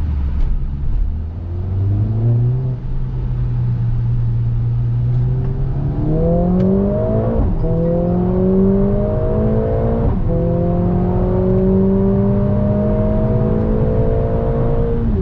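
Mercedes-AMG A45 S's turbocharged 2.0-litre four-cylinder heard from inside the cabin under hard acceleration. The engine note runs steady at first, then rises through the revs from about six seconds in, with two quick upshifts, one about seven seconds in and one about ten seconds in, each dropping the pitch before it climbs again.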